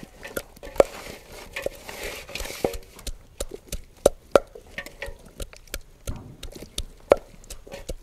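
Kitchen utensils knocking and clicking at an uneven pace during food preparation, with a few sharper, louder knocks among lighter clicks.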